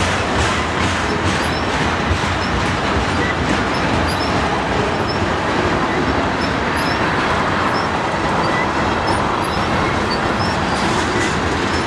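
Long, heavy freight train of loaded tank cars rolling slowly past: a steady rumble of steel wheels on the rails, with rhythmic clicks of wheels over the rail joints near the start and again near the end.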